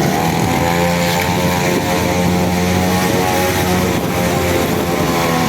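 Small two-stroke brush-cutter engine mounted on a bicycle, running steadily at a fairly constant speed.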